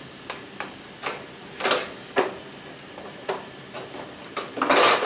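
Plastic prismatic diffuser lens being fitted onto a metal fluorescent light fixture: a series of sharp plastic clicks and knocks as it is pushed into place, the loudest cluster near the end.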